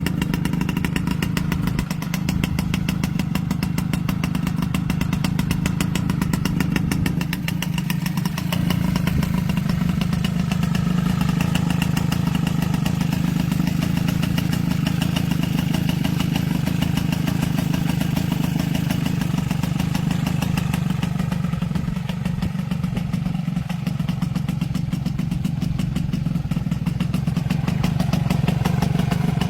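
Small scooter engine idling steadily.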